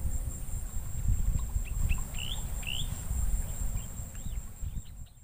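Outdoor field ambience: an uneven low rumble of wind on the microphone, with a few short rising bird chirps about two seconds in and a steady thin high tone in the background. It all fades out at the very end.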